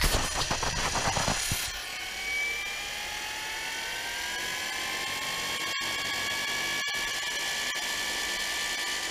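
RC scale helicopter spooling up on the ground: a steady mechanical whine that rises slowly in pitch over a few seconds and then holds. Irregular gusty buffeting in the first second and a half.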